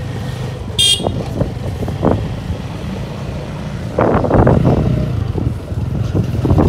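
Motorcycle engine running with a steady low hum, with a brief shrill squeak about a second in and voices from about four seconds in.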